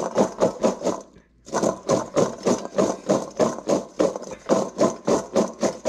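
Crabapples rolling and rattling against a stainless steel bowl shaken rhythmically back and forth, about four strokes a second, with a short pause a little after one second in.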